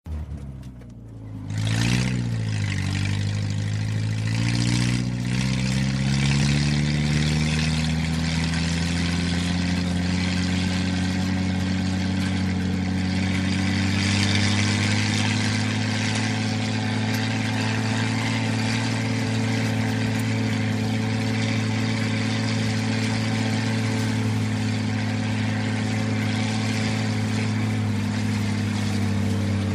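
Old Jeep engine driving. It picks up about two seconds in and climbs in pitch as it accelerates, with a brief drop near five seconds like a gear change, then holds a steady cruising drone.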